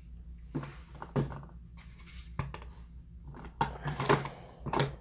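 Light clatter of small makeup items being handled: a few separate taps and knocks, coming closer together near the end.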